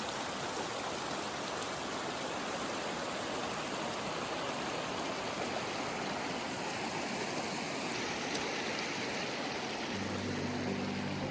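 Steady, even rush of running water from a mountain waterfall. Low music notes come in near the end.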